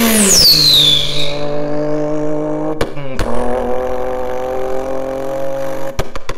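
A man's vocal imitation of a Toyota Supra's twin-turbo engine, hummed and buzzed through a paper towel tube: a high whistle that falls steeply in the first second, then a steady, low engine-like drone. Sharp clicks break in, two about three seconds in and a quick run near the end.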